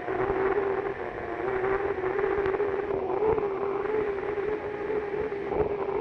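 Unlimited hydroplane's Lycoming T55 gas-turbine engine running at a steady speed, heard onboard as a constant whine over a steady rushing noise.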